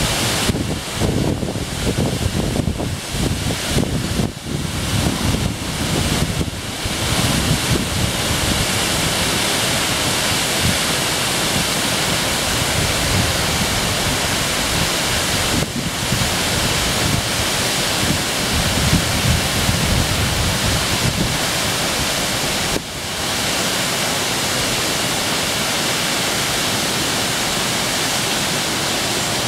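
Waterfall: a steady rushing of falling water, with wind buffeting the microphone in the first several seconds and again about two-thirds of the way through.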